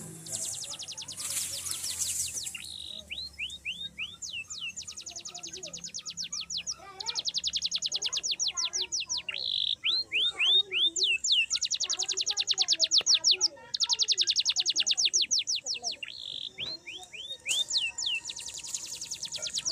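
A bird singing: repeated phrases of rapid trills, about ten sharp falling notes a second, several phrases led in by a few slower, curving notes.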